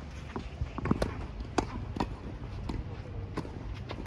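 Tennis rally on a hard court: sharp pops of racket strikes on the ball and ball bounces, a few seconds apart, with quick footsteps of the players.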